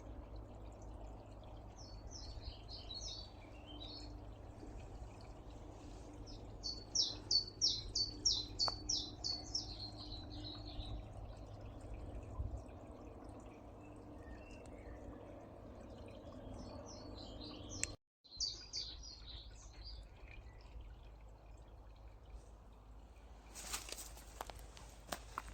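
Woodland songbirds singing in short phrases of quick, high repeated notes, over a steady low rumble of distant road traffic. Near the end, a rough scuffing noise comes in.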